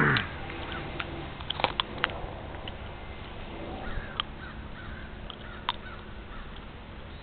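A single animal call right at the start, then a few faint, scattered sharp clicks.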